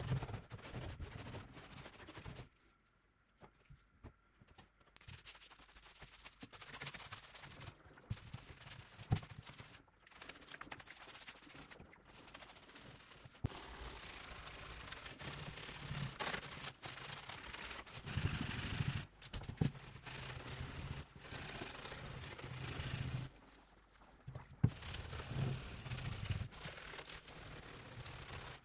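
Gloved hands scraping and scrubbing the old wooden boards of a chest: a scratchy rubbing noise that stops briefly twice, with a few sharp knocks along the way.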